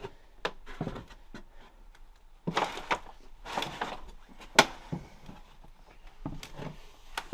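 Footsteps and knocks on old wooden boards, irregular thumps and creaks, with one sharp knock about four and a half seconds in.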